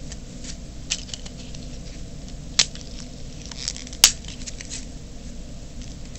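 Scattered small clicks and rustles of hands handling light craft parts, with two sharper clicks, one about two and a half seconds in and one about four seconds in, over a steady low hum.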